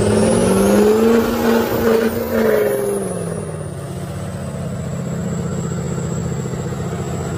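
Lifted diesel pickup's engine revving hard under load: the pitch climbs in the first second, holds, then falls away about three seconds in to a steadier, lower drone.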